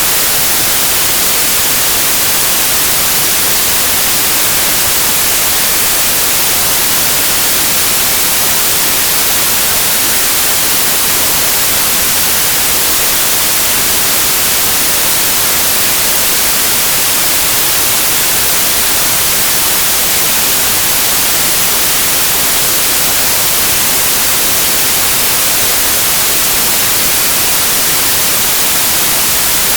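Steady white noise: an even, loud hiss that never changes, strongest in the high end.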